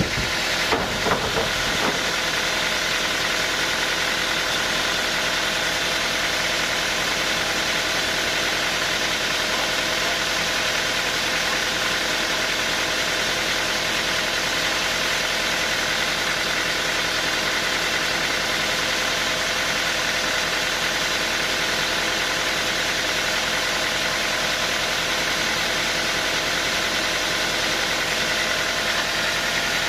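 Sawmill machinery running steadily with a constant drone, with a few sharp knocks about a second in.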